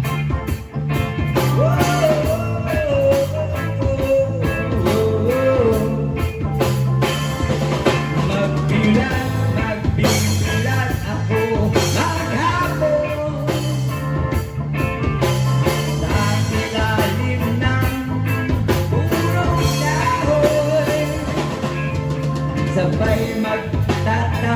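Band playing rock music with a drum kit, bass and a wavering melodic lead line, with no lyrics sung.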